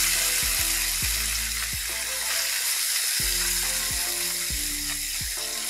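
Small fish sizzling steadily in a pan of hot soybean oil, just added to fry crisp.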